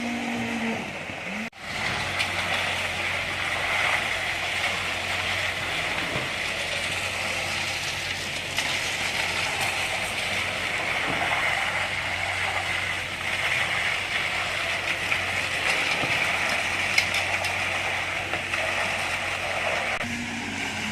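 Heavy machinery running steadily: an engine's low hum under a continuous hissing, rattling mechanical noise. The sound starts after an abrupt cut about a second and a half in.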